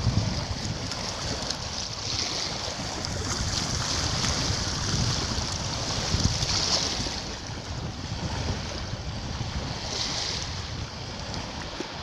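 Small sea waves washing up and drawing back over a sandy beach, the foam hissing and swelling as each wave comes in. A low wind rumble on the microphone underneath.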